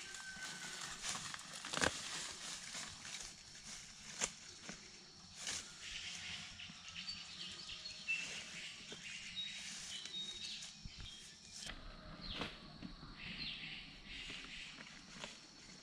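Dry leaf litter and undergrowth rustling and crunching as a person moves and handles the plants, with a few sharp snaps, the loudest about two seconds in. Short, high bird chirps can be heard in the background.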